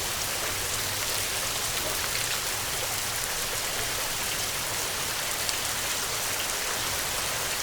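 Steady rain falling: an even hiss with many fine drop ticks on top.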